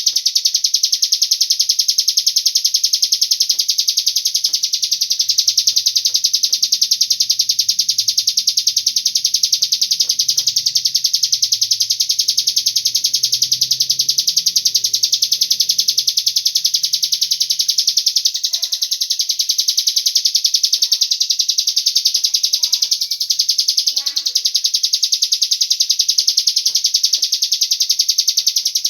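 Cigun birdsong played as a lure: one loud, continuous, very rapid high-pitched trill that never pauses.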